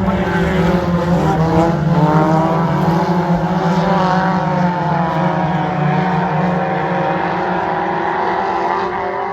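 Several Hornet-class race cars' engines running together during a heat race, their pitches rising and falling as they go around the dirt oval.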